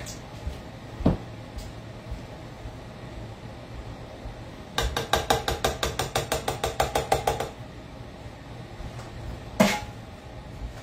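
A quick, even run of about twenty light ringing knocks, some eight a second, lasting two to three seconds midway: an opened metal sauce can being shaken and tapped against the rim of a ceramic baking dish to empty it. A single knock comes about a second in and a sharper one near the end.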